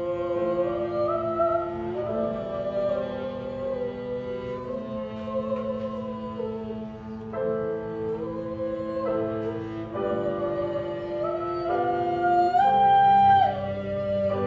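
Violin and cello playing together: the violin holds long bowed melody notes over sustained lower cello notes, rising to its loudest, highest held note near the end.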